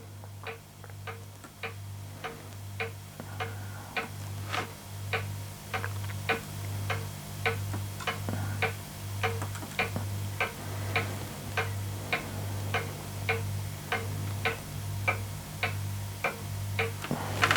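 Regular clock-like ticking, a little under two ticks a second, over a low hum that swells and fades in a steady rhythm, playing from the test MP4 video on the laptop.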